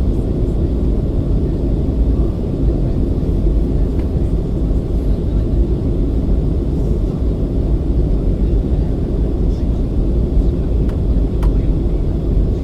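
Steady low rumble of an airliner's cabin noise during descent: engine and airflow noise heavy in the low end, even throughout, with a faint tick about eleven seconds in.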